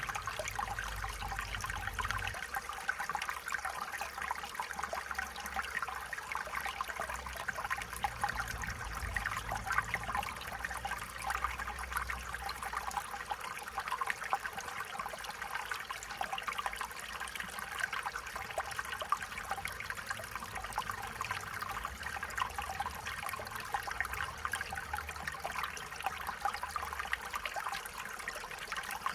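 Small stream trickling and babbling over stones, steady and even.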